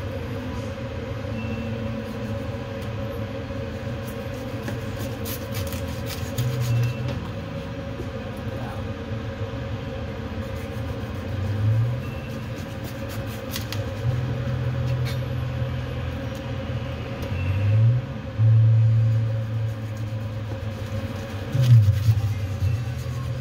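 A steady low rumble and hum that swells several times with short rising glides, with a few faint clicks of a knife blade against a plastic cutting board as a steak is sliced.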